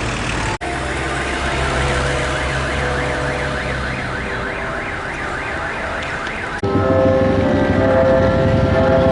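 Electronic siren warbling rapidly up and down, about three swings a second, starting abruptly just after the start and cutting off about two-thirds through. A louder sound with several steady held tones takes over near the end.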